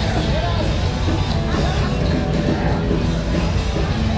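Live rock band playing loudly over a PA system.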